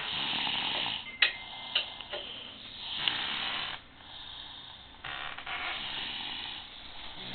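Snoring in sleep: three long snores about two seconds apart, with a few sharp clicks after the first.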